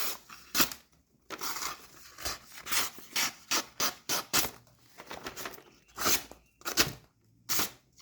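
About a dozen short scraping strokes of a Victorinox Hunter Pro Alox's steel blade, as the edge is touched up and tried again after dulling in the cutting test. There is a pause around five seconds in.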